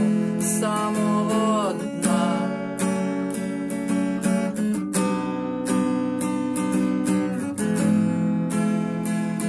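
Acoustic guitar strummed in a steady rhythm. A man's sung note glides and trails off in the first couple of seconds, then the guitar plays on alone.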